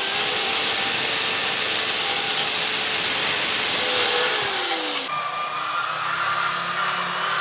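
Electric drill spinning a wire wheel brush against a moped's metal frame, scrubbing off paint softened by stripper. It gives a steady motor hum under a harsh scratching hiss. A little over four seconds in the motor note falls, and the sound then cuts to a quieter pass of the same brushing.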